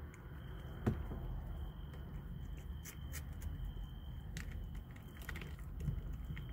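Kittens chewing cat food, with small scattered clicks and crunches and one sharper knock about a second in. A faint steady high whine runs underneath.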